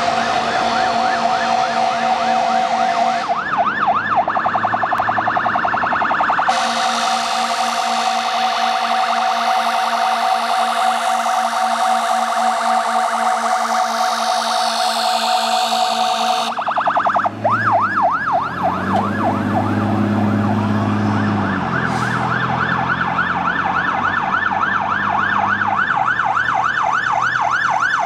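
Fire engine's siren in a fast up-and-down yelp, broken by two long, steady horn blasts: one at the start and one lasting about ten seconds from around six seconds in. After the second blast the siren yelp returns and carries on to the end.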